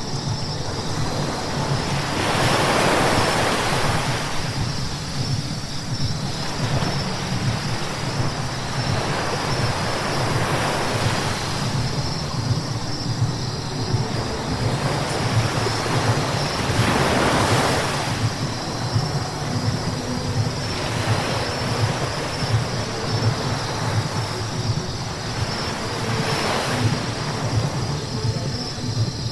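Car driving on a wet road: a steady low rumble of engine and road, with tyres hissing on the wet surface. The hiss swells three times, at about two seconds, past the middle, and near the end.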